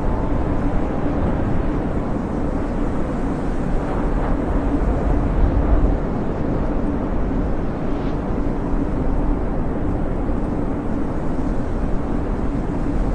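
Snowstorm wind blowing steadily, a dense low rumble with a faint higher whistle above it.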